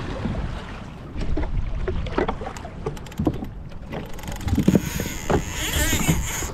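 Water slapping and splashing against a plastic kayak hull in choppy swell, with wind rumbling on the microphone and scattered irregular knocks. A brief high whirring hiss comes in near the end.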